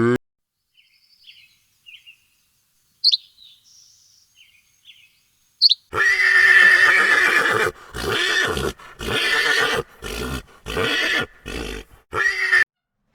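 A horse neighing: one long whinny about halfway in, followed by a run of shorter broken calls. A few faint short chirps come before it.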